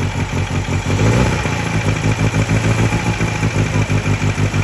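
MGA four-cylinder engine running at idle with a regular, even pulse on its first run after a full rebuild. The revs pick up briefly about a second in.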